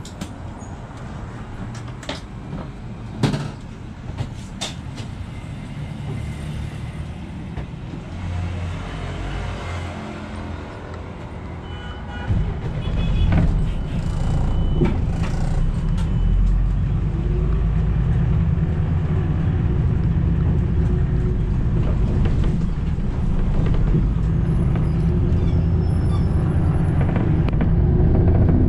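Inside a city bus: a low rumble while the bus stands still, with a few sharp knocks in the first few seconds. About twelve seconds in the rumble swells and stays louder as the bus pulls away and drives on.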